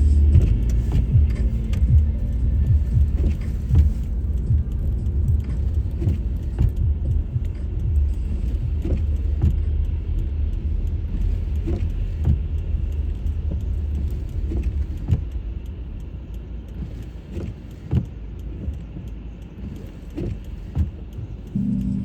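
Car driving on a snowy, icy road: a low rumble of road noise with frequent small knocks and rattles, getting quieter in the second half.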